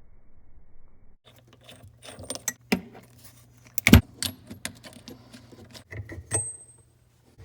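A run of sharp clicks and clatters, loudest about four seconds in, over a low steady hum that starts about a second in and stops just before the end.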